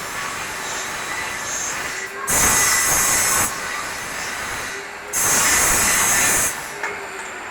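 Two loud bursts of hissing, each a little over a second long, over a steady background noise.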